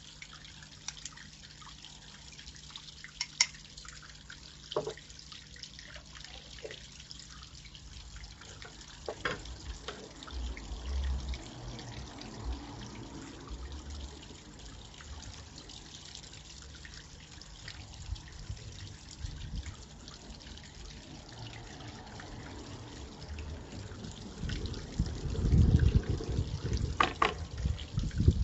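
Steady trickling and dripping of water from a garden pond fountain, with a few sharp clicks. Near the end a louder low rumbling stretch comes in while the butter in the pan is being stirred.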